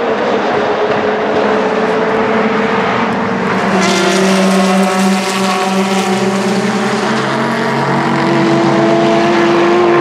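Endurance racing cars, a Porsche 911 RSR GTE among them, running hard past trackside. Several engine notes overlap, and the sound grows brighter and fuller about four seconds in as a car passes close.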